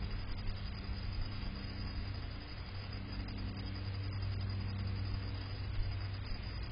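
A steady low motor hum over a background hiss, fading briefly about two and a half seconds in before it returns.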